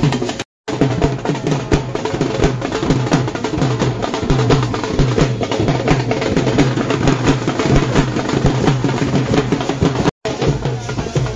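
Dhol drum beaten in a fast, steady dance rhythm. The sound cuts out for an instant about half a second in and again near the end.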